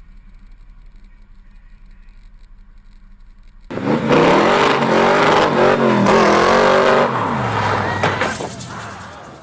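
A low steady traffic rumble, then a sudden cut to a Shelby Cobra-style roadster's engine revving hard as it pulls away. The engine note climbs and drops for about three seconds, then falls in pitch and fades.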